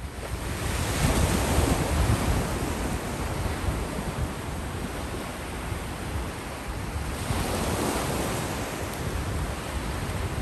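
Small waves of surf washing up onto a sandy beach, fading in at the start and swelling twice as waves break and run up, with wind rumbling on the microphone.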